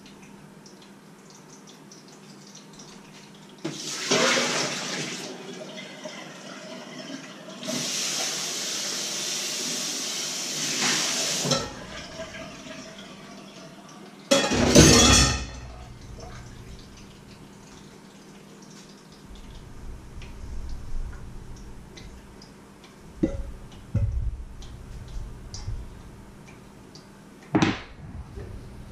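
Water rushing and splashing into a kitchen sink in spells of a few seconds, with a short loud rush about halfway through. Later come a few knocks of steel bowls being moved on a wooden board.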